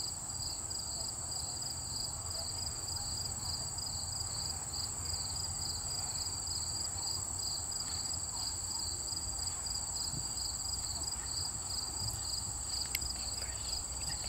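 Steady insect chorus: one continuous high trill, with a second, lower chirping that pulses at an even rhythm, over a low background rumble. A few faint clicks come near the end.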